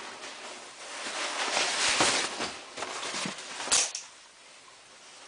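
Sleeping bag being handled: fabric rustling and scraping, building to its loudest around two seconds in, with a short sharp scratch near four seconds.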